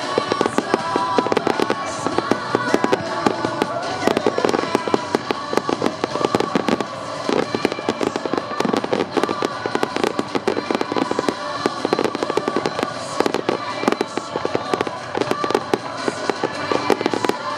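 Aerial firework shells bursting in a dense, unbroken barrage, several bangs a second.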